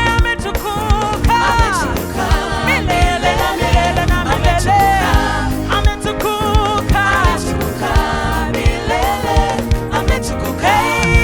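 Gospel praise-and-worship music: singing voices with wavering held notes over a band with a steady beat.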